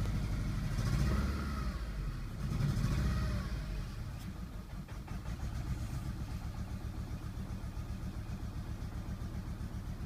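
Audi A3 petrol engine with a misfire, blipped twice then settling to an idle with a pulsing beat. The misfire persists after a coil pack change, with compression confirmed.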